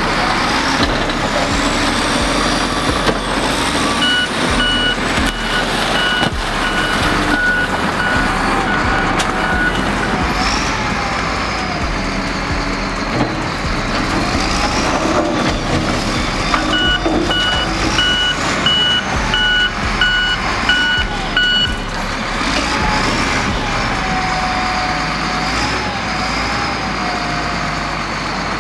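Wheel loader's diesel engine running steadily while the machine pushes into a brick wall. A reversing alarm beeps at a steady pace in two spells, a few seconds in and again past the middle.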